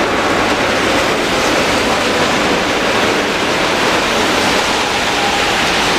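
Heavy rain falling hard: a loud, steady rushing hiss, with a faint whine running through it.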